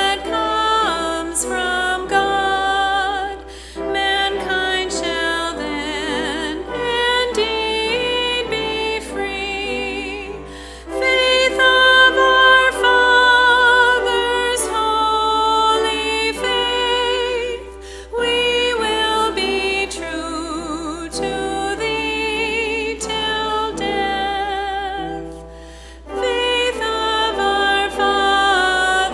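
Congregation singing a hymn, in phrases of a few seconds with short breaks between them and wavering held notes.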